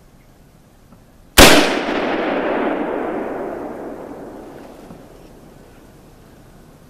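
A single .30-30 lever-action rifle shot, loud and sharp, about a second and a half in, followed by a long echo that fades away over about four seconds.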